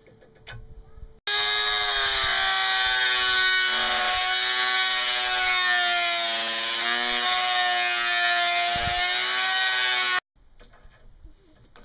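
Handheld rotary tool running at high speed, grinding at a steel ball bearing: a steady high whine with many overtones whose pitch sags slightly as it bears on the work. It starts abruptly about a second in and stops abruptly near the end.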